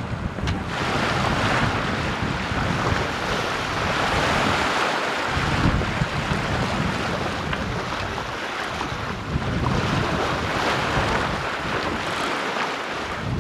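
Sea water rushing and splashing along the hull of a sailing yacht as its bow wave breaks alongside, with wind buffeting the microphone.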